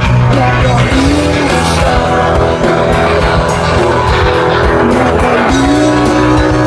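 Rock band playing an instrumental passage with no vocals: guitar lines with slow bent notes over bass and drums.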